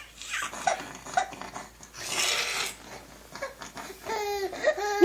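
A young child's breathy laughter and babbling, then from about four seconds in a loud, high, drawn-out wailing voice.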